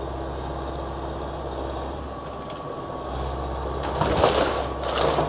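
Excavator engine running steadily, then two loud crunches about four and five seconds in as the building's structure is broken and crushed during demolition.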